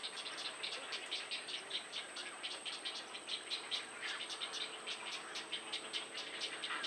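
Outdoor animal chorus: short rattling chirps, several a second, run on without a break over a steady high-pitched whine.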